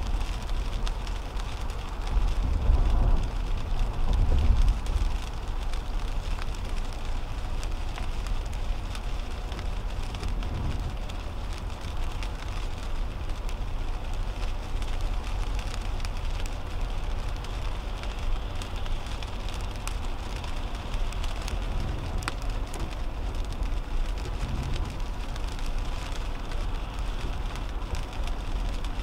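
Rain pattering on a car's windshield over the steady hiss and rumble of tyres on a wet highway, heard from inside the cabin of a 2010 Toyota Camry. The rumble swells for a couple of seconds about three seconds in.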